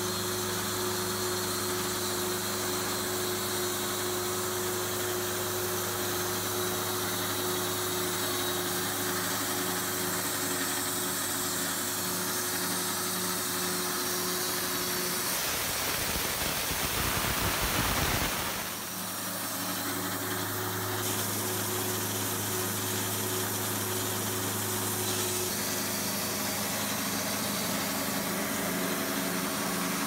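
Wood-Mizer LT40 band sawmill running steadily, its electric motor giving a constant hum. About halfway through, a loud rushing noise lasts about three seconds, then the hum returns.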